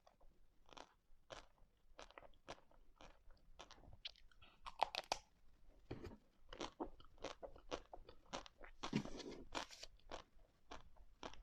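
Ice cream being eaten close to the microphone: crisp crunching bites and chewing, a short crackle about every half second. The crunching grows denser and louder around five seconds in and again about nine seconds in.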